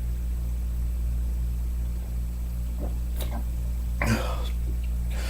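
A man's short burp about four seconds in, brought up by gulping carbonated soda, after a couple of faint clicks. A steady low hum runs underneath.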